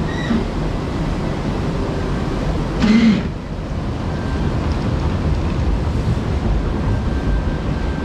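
Steady churning of water around a round river-rapids raft as it floats along the channel, with a low rumble underneath. A brief louder sound breaks in about three seconds in.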